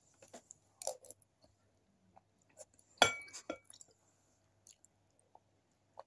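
Metal spoon clinking and scraping against a stainless steel bowl of noodles, a few light clinks and one loud ringing clink about three seconds in, with some chewing.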